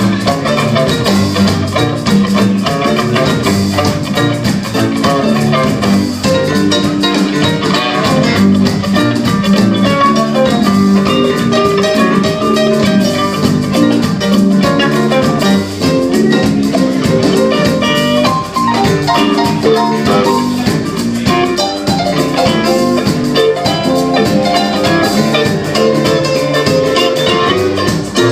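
A live rock band playing an instrumental passage: guitar lines over a drum kit with a steady beat.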